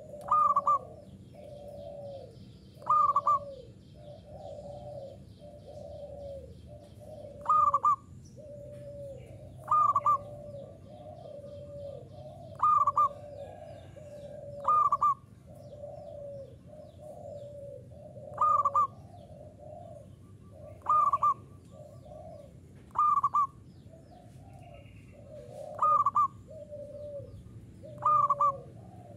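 Zebra dove (perkutut) singing steadily: a phrase about every two to three seconds, each a loud higher note followed by a run of lower rolling coos.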